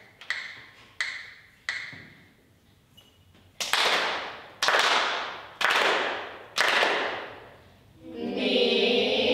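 Percussion instruments struck in a steady beat, about one stroke a second: a few lighter strikes with a faint ring, then four louder strikes that each ring out before the next.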